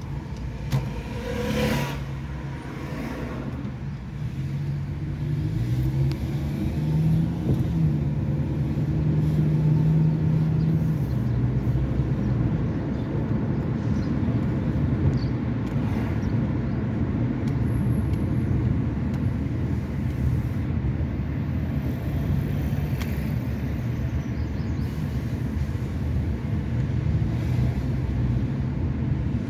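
Car engine running with road noise. The engine note rises and falls as the car changes speed.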